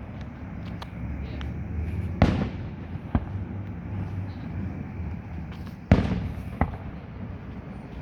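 Fireworks going off: two heavy booms, about two seconds in and near six seconds, each with a rumbling tail, and several sharper cracks between them.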